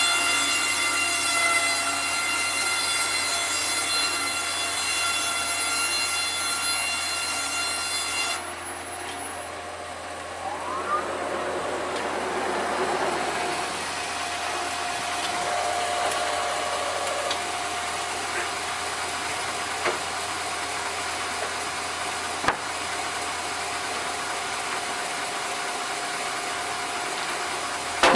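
Sawmill machinery running: a steady high-pitched whine from the saw and motor that stops suddenly about eight seconds in. After that comes a noisier mechanical hiss with a steady hum.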